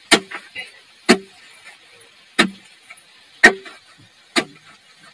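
Hand tool striking rock in a dug pit: five sharp blows roughly a second apart, each with a short metallic ring.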